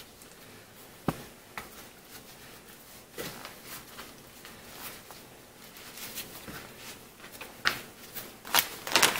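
A large flour tortilla being folded and rolled around refried beans on a plastic cutting board: soft rustling and scraping, with a few light taps and clicks, the sharpest about a second in.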